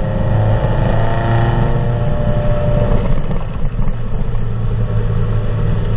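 Exhaust of a 2005 Subaru STi's turbocharged 2.5-litre flat-four, fitted with an Invidia equal-length header, Cobb cat-back exhaust and Full-Race EFR 6758 turbo, running on E85. The engine speed rises a little in the first second and a half and settles back over the next second and a half, then holds a steady idle.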